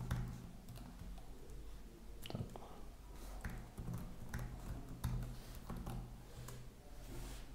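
Faint, irregular clicks of computer keys being typed, over a low steady hum.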